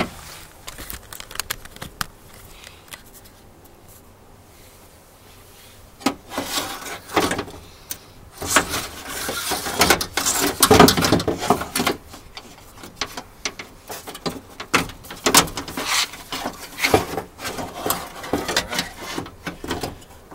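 Old window regulator and motor assembly being worked out of a Nissan Frontier's door: its metal rails and cable clank, rattle and scrape against the sheet-metal door frame in irregular knocks. The rattling starts about six seconds in, after a quieter stretch.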